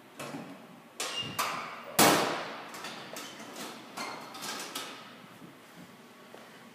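Metal school locker door slammed shut about two seconds in, the sheet-metal door ringing briefly. Lighter knocks and clicks come before it and after it, from the door and its built-in combination lock being handled.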